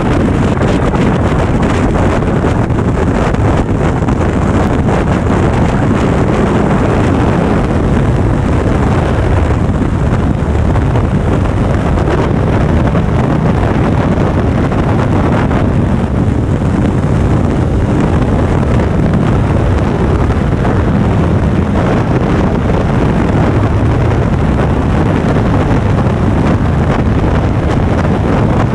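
Motorcycle cruising at steady highway speed: loud, constant wind rushing over the microphone, with the engine and road noise running underneath.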